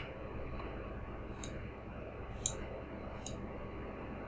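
Three computer mouse clicks, the middle one loudest, over a steady faint background hiss.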